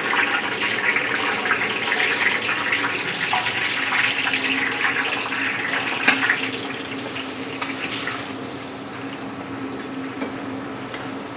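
Ground garlic sizzling in hot oil in a large wok, a dense steady hiss that eases off over the last few seconds, with a steady low hum underneath.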